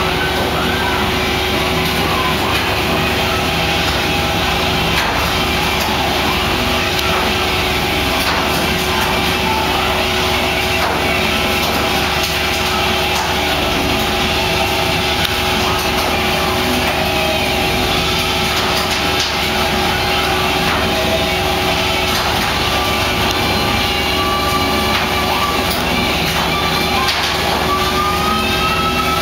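Fishing boat's engine running steadily at sea, a constant drone with a few fixed tones over a low rumble.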